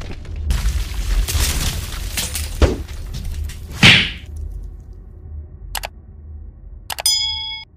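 Intro sound effects: a noisy rush with a sharp crack about two and a half seconds in and a whoosh near four seconds, then two clicks and a short ringing ding near the end.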